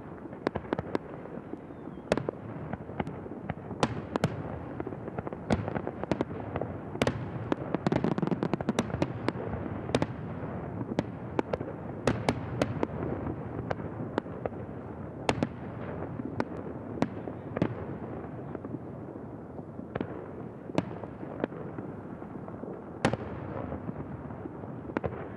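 Fireworks display: a rapid, irregular stream of sharp bangs and cracks over a continuous rumble of bursts, densest about eight seconds in.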